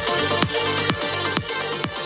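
Electronic dance music played through a Betron KBS08 mini Bluetooth speaker, a 3-watt unit with a 45 mm driver, picked up by a microphone held at its top. A steady kick drum lands about twice a second under dense synth sound.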